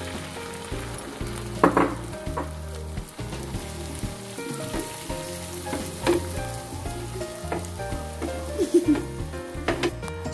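Omelette of beaten egg with onion, tomato and green chilli sizzling as it fries in hot coconut oil in a nonstick pan. Three short knocks break in, about two seconds in, about six seconds in and near the end, the last as a spatula goes into the pan.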